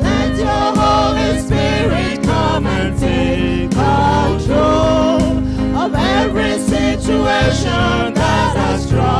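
Gospel choir singing into microphones, with electronic keyboard accompaniment keeping a steady beat underneath.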